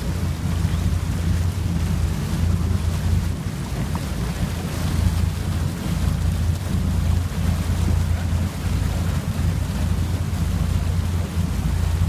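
A boat under way: a steady low rumble from the engine, mixed with water rushing in the wake and wind buffeting the phone's microphone.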